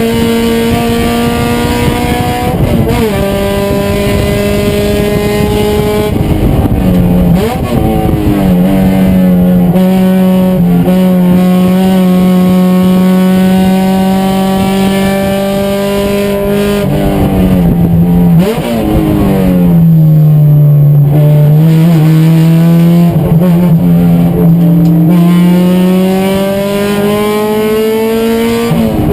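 Race car engine running hard at high revs, its pitch dropping sharply at each gear change and climbing again under acceleration, with a deeper dip about two-thirds of the way through before a long steady climb.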